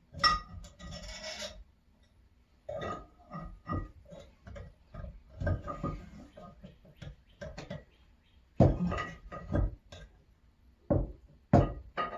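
Metal vise parts being worked back together by hand: a short scrape near the start, then a series of irregular sharp metallic knocks and clanks, some with a brief ring, the loudest near the end. The part is binding on a washer and won't go in.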